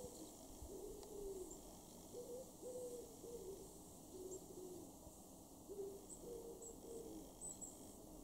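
Faint cooing of a pigeon: low hollow notes repeated in short phrases of three or four, the second note of each phrase the longest. A few tiny high chips of small birds are heard alongside.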